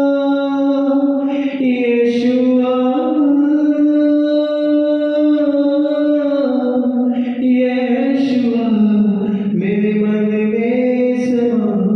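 A man singing a Hindi Christian worship song, holding long drawn-out notes that slide and step between pitches, with only a few short consonants between them.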